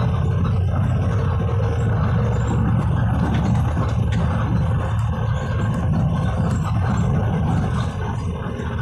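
City bus in motion heard from inside the cabin: a steady low rumble of engine and road noise.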